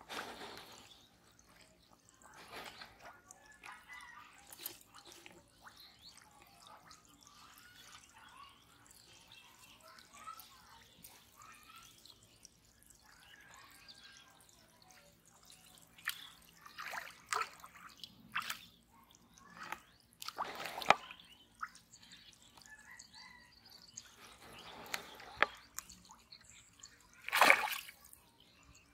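Water dripping and splashing in short, irregular bursts, with a few louder splashes in the second half.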